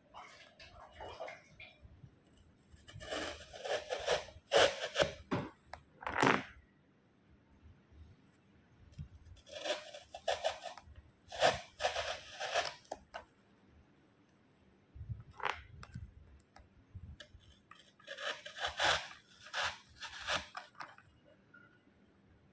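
Beaded artificial flower stems being handled and pushed down into a plastic pot: crunching, scraping bursts that come in several spells with quiet pauses between.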